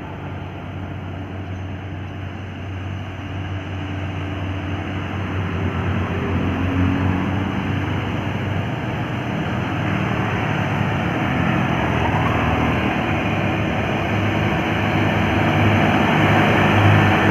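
Heavy truck's diesel engine pulling up a steep hill, a low steady drone with road noise that grows gradually louder as the truck approaches.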